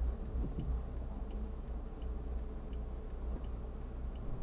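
Low, steady engine and road rumble of a Fiat Uno Economy, heard from inside the car as it drives slowly, with a faint light tick repeating evenly about three times every two seconds.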